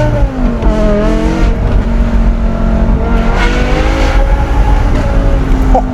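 BMW E60 M5's V10 with a loud aftermarket exhaust pulling hard under acceleration: the revs fall once at a gear change just after the start, then climb steadily again.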